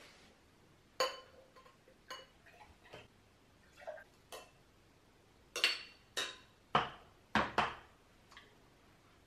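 Glass beer glasses clinking together in a toast: a string of sharp clinks, the first with a short ring, then a quicker run of louder clinks and knocks past the middle.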